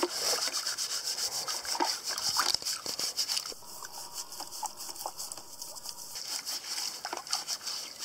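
A stiff palm-fibre tawashi scrubbing brush scouring the skin of a wet sweet potato in a bucket of water, in quick repeated scratchy strokes.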